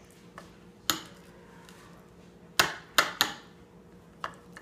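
A child's fork knocking against a ceramic bowl of salad: five sharp clacks, three of them in quick succession past the middle.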